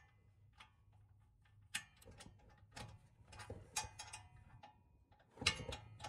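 Faint, irregular metallic clicks and ticks from a wrench and socket being fitted on the catalytic converter flange bolts. A louder burst of noise comes near the end.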